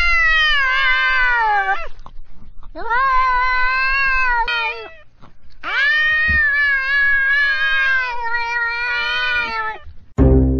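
Tabby cats in a face-off yowling: three long, drawn-out wavering caterwauls with short breaks between them, the threat calls of cats squaring up to fight. Plucked-string music comes in at the very end.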